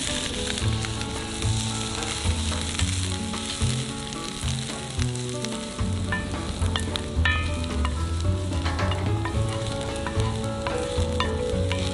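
Food sizzling as it fries in oil in a pan, with scattered clicks and scrapes of a utensil stirring it.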